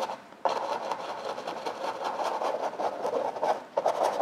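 Dry bristle brush scrubbing and dabbing acrylic paint onto a stretched canvas, a continuous scratchy rasp. The rasp pauses briefly just after the start and again about three and a half seconds in, between strokes.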